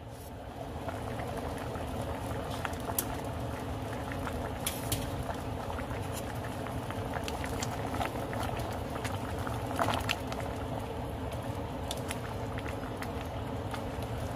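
A pot of soup boiling hard on the stove, a steady bubbling that gets louder once the lid comes off about half a second in. A wooden spatula stirs through it, with scattered clicks and pops over the bubbling.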